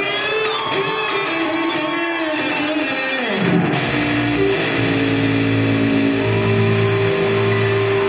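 Live rock band with electric guitars playing through amplifiers: guitar notes over the first few seconds, then about three and a half seconds in low bass notes come in and the band holds long sustained chords.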